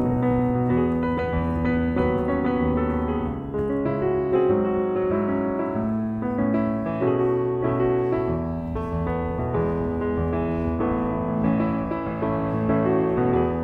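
Background music: piano melody over sustained keyboard chords.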